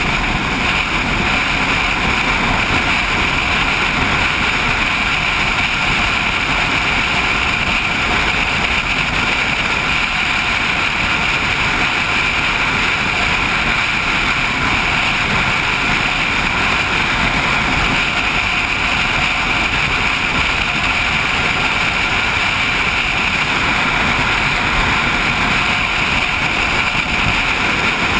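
Motorcycle cruising at a steady speed, heard from a camera on the bike: a steady rush of wind over the microphone with road and engine noise beneath it.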